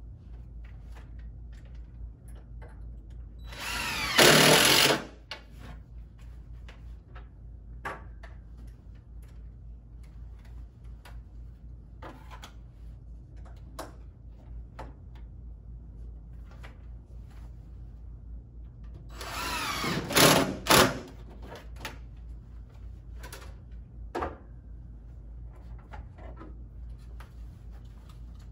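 Cordless drill driving screws to fasten shade mounting brackets into the window frame: two short runs well apart, each building up and then loud for about a second. Light clicks and knocks of handling come in between.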